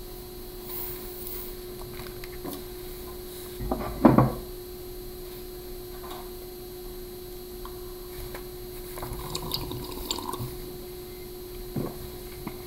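Quiet room tone with a steady faint hum, a brief thump about four seconds in, and a few faint rustles and clicks near the end.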